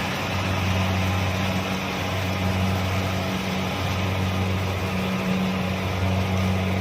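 Kubota DC-70 combine harvester running steadily: a low, even engine drone with a dense mechanical rush from the harvesting machinery.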